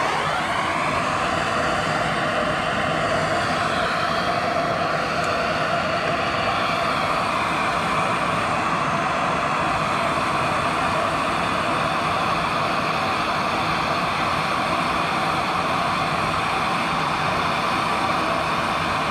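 Handheld gas torch burning with a steady, loud rush of flame.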